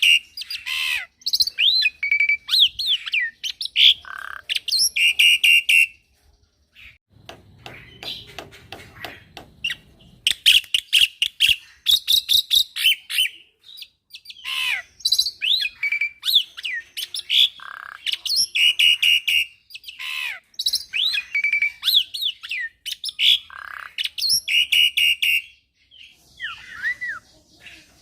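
Young black-winged myna (jalak putih) singing energetically in long, varied phrases: rapid runs of chattering notes, harsh squawks and sharp down-slurred whistles. There is a brief pause about six seconds in.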